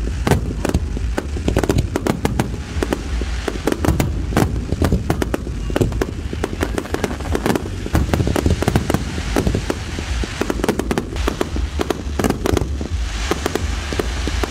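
Fireworks display: a fast, unbroken barrage of bangs from many shells bursting at once, several reports a second, with a rising hiss of crackle near the end.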